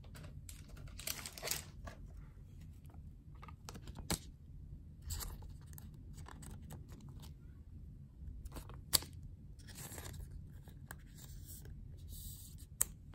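Clear plastic card sleeve crinkling and rustling in the hand as a baseball card is slid into it, in short intermittent bursts with a few sharp clicks.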